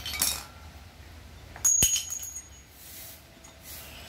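A short scrape, then a hard metal-on-metal clink about one and a half seconds in that leaves a brief high ring, with faint scraping afterwards. This is the sound of metal engine parts or tools being handled and set down during engine disassembly.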